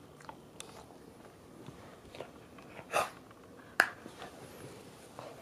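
A Cavalier King Charles Spaniel sniffing and nosing small plastic cups around on a carpet to find treats. There are scattered light plastic clicks and knocks, a louder rustling burst about three seconds in, and the sharpest click just before four seconds.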